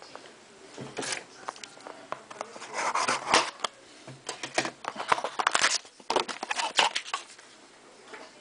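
Hands handling the cardboard and wrapping of a box of hockey trading-card packs: irregular rustling, scraping and crinkling with sharp clicks, loudest about three seconds in and again near the middle.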